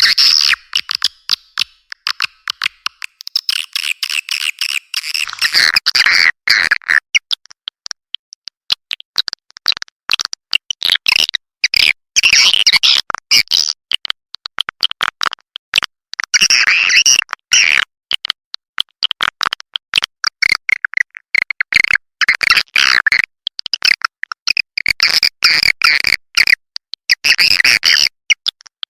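Swiftlet calls of the kind used to lure swiftlets to nest houses: a dense, fast chatter of clicks and high twittering chirps in clusters with short gaps.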